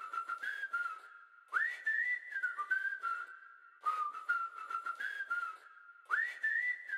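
A person whistling a short tune, the phrase repeating about every two seconds and starting each time with a quick upward swoop, with the breathy hiss of the whistling under the notes.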